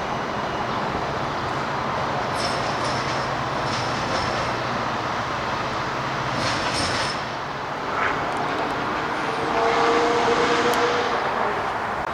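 Metra commuter train rolling past: steady wheel and rail noise with a couple of short clanks.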